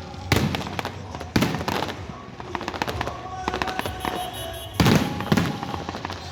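Fireworks shells bursting: about five sharp bangs, each trailing off. The loudest are a pair about half a second apart near the end.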